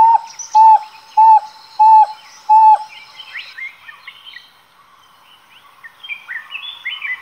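Dhole (Indian wild dog) giving five loud, clear whistles in a row, about 0.6 s apart, the call dholes use to gather the pack. After the whistles, birds chirp faintly in the background.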